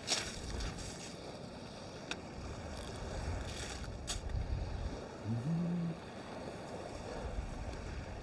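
Low steady rumble of wind on the microphone at the shoreline, with a few faint clicks and a short low hum about five seconds in.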